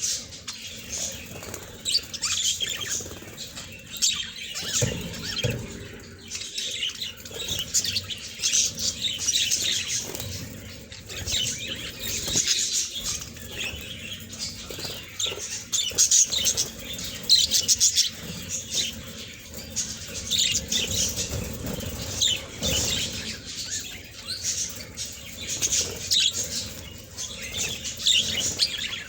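Budgerigars chattering and warbling: a continuous stream of short, scratchy chirps and twitters.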